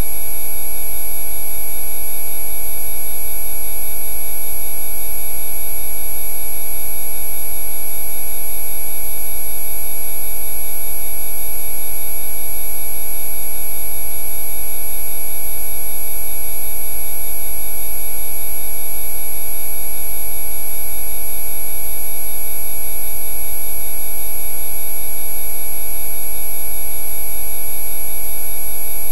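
Synthesized Rife frequency tones: several steady electronic pitches sounding together over a deep low hum, unchanging.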